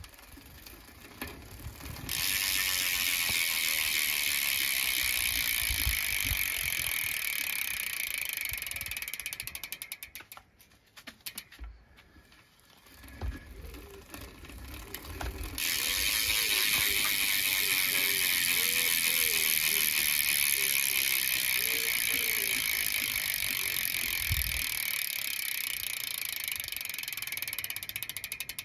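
Cinema VX2 cassette hub freewheeling, its pawls ratcheting in a fast, high-pitched buzz of clicks. Around the ten-second mark the wheel winds down into separate, slowing clicks and goes nearly quiet. It spins up again a few seconds later into the same buzz, which slows back into single clicks near the end.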